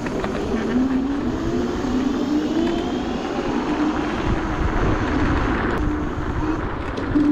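Dualtron Thunder 2 electric scooter's hub motors whining under throttle, the pitch rising and falling with speed, over wind rumble on the microphone.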